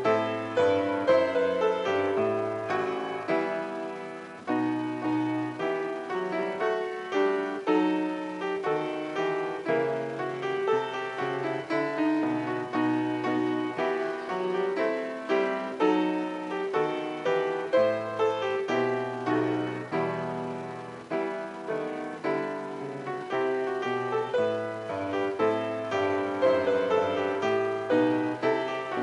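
Piano music: a continuous flow of notes over a bass line that changes every second or two.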